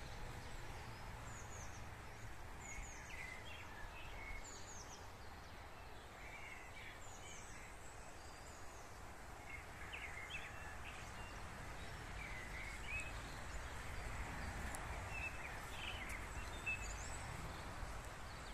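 Songbirds singing outdoors: many short chirps and whistles from more than one bird, scattered throughout, over a low steady background rumble.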